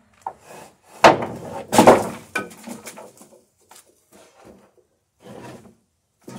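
Long wooden boards knocking and clattering against each other as one is pulled from a stacked pile and laid across a wooden rack. Two loud clatters come about one and two seconds in, followed by lighter knocks and scraping as the board is slid into place.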